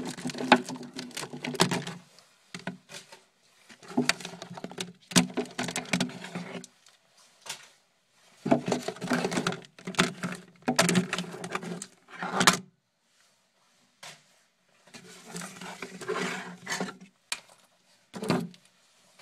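Trading cards and their holders being rummaged through and handled close to the microphone: rustling with sharp clicks, in four bursts of a few seconds with short pauses between.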